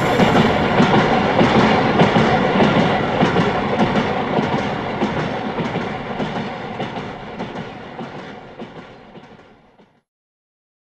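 Train running along the track, its wheels clattering irregularly over rail joints and points; the sound fades out steadily and ends in silence shortly before the end.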